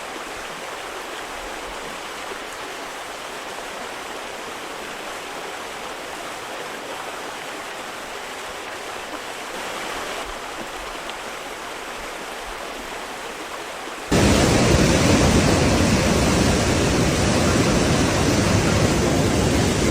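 Steady rushing of fast-flowing floodwater; about 14 seconds in it cuts to a much louder, deeper rush of water.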